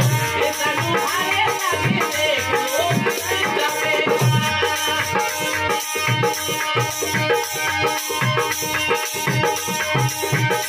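Harmonium, dholak and a plastic jingle tambourine playing a Marwari folk song: held harmonium chords over steady hand strokes on the dholak and the tambourine's jingling.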